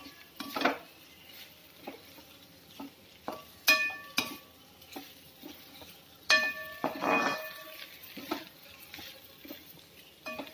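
A spatula stirring grated taro in a frying pan over high flame: repeated scrapes and knocks against the pan, two of them loud ringing clanks about a third and two thirds of the way through, over a faint sizzle.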